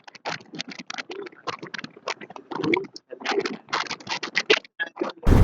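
A quick, irregular run of clicks and taps with a few duller thuds, picked up through an earphone's inline microphone. Just before the end it cuts abruptly to a loud, steady rush of noise.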